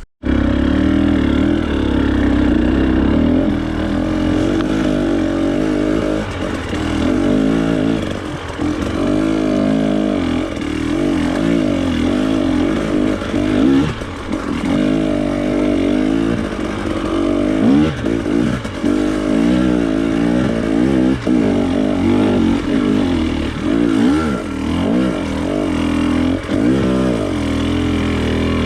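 Off-road trail motorcycle engine running under load, its pitch rising and falling constantly as the throttle is worked over rough ground. It comes in suddenly at the start and stays loud throughout.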